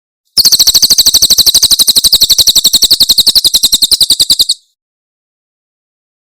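Cililin bird singing its 'tembakan' song: a loud, rapid, evenly paced trill of high notes, about ten a second, that lasts about four seconds and stops abruptly.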